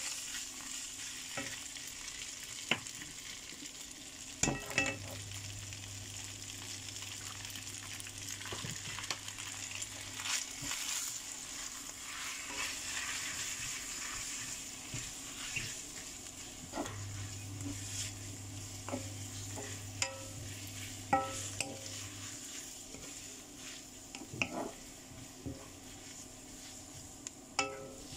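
Noodles, egg and meat sizzling in a wok as they are stir-fried and tossed with wooden chopsticks. Now and then there is a sharp knock of the chopsticks against the pan.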